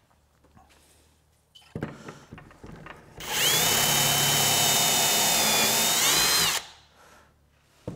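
A cordless drill bores a pocket hole through a half-inch board in a pocket-hole jig. It runs steadily for about three seconds with a whine that rises slightly just before it stops, after a few knocks as the board is positioned and clamped.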